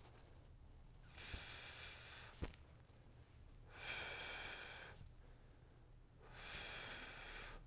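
Faint mouth breathing of a man exercising: three long exhalations, one about every two and a half seconds, in time with pulling a resistance band apart. A single sharp tick just before halfway.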